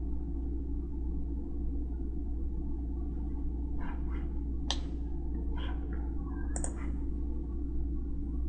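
Steady low hum of room and microphone noise with a few computer mouse clicks: a single click just under five seconds in and a quick double click about two seconds later.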